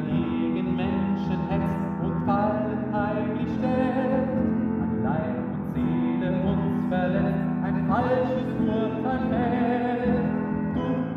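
A slow German hymn sung by one voice with vibrato, over held piano chords.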